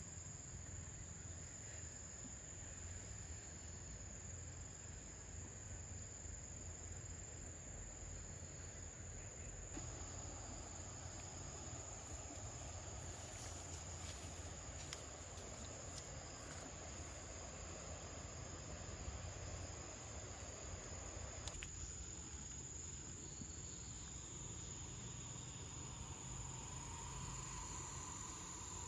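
Faint, steady, high-pitched insect drone, one continuous tone, over a low outdoor background rumble.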